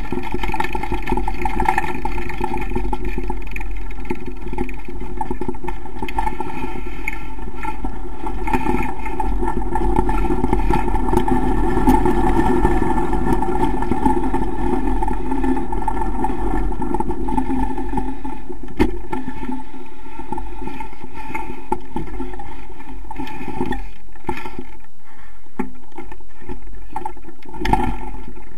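Small motorcycle engine running at a steady, low pace while riding slowly over a dirt and gravel track. Near the end the deep rumble eases as the bike slows toward a stop.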